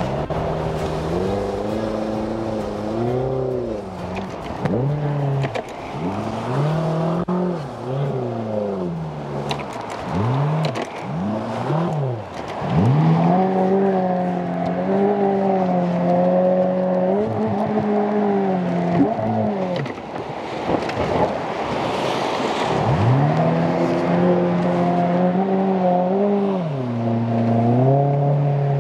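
Outboard motor of a PVC water-jet boat revving up and down over and over, its pitch climbing and dropping in short swells, then held high for several seconds at a time with brief drops. This is the throttle being worked to steer through a shallow, rocky rapid.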